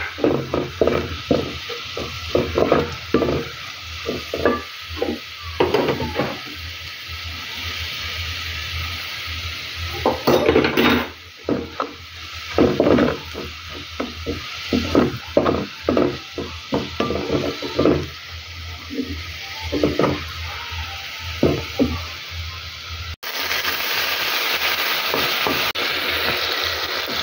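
A wooden spoon stirring and scraping onions frying in oil in a metal pot: repeated short scraping strokes over a sizzle. Near the end the sound changes to a steadier, denser sizzle as chopped tomatoes fry.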